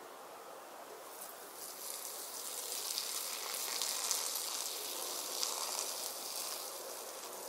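A person urinating into garden bushes: a hissing stream that starts about a second in, is loudest midway, and tapers off near the end.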